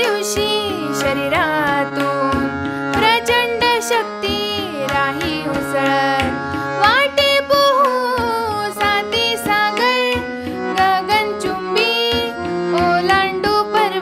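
A woman singing a Marathi children's poem to a tabla-led musical accompaniment.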